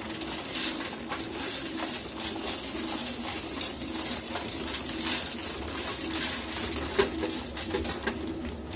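Mixed livestock feed of chopped straw, silage and crushed barley pouring and rustling out of a tipped plastic barrel mixer into a plastic tub, with pigeons cooing in the background.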